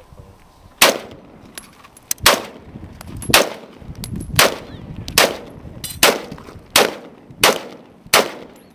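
Colt AR-15 LE6920 carbine firing 5.56 mm rounds semi-automatically: nine single shots, the pace quickening from about one and a half seconds apart to under a second apart.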